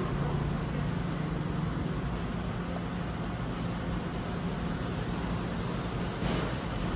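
Steady low hum over a constant rush of background noise, with no distinct events; a faint brief noise comes near the end.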